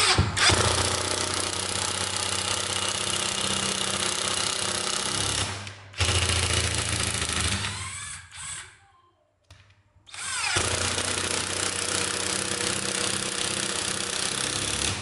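National cordless drill-driver running under load as it drives a screw into a wooden block, a steady motor whine. It dips briefly about five and a half seconds in, winds down about eight seconds in, falls silent for a second, then starts up again.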